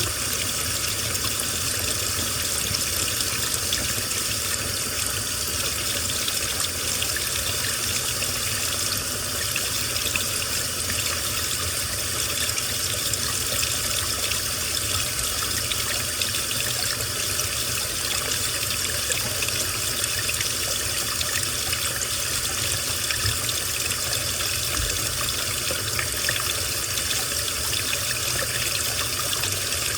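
Water running steadily inside a washing machine, an even rushing and splashing sound.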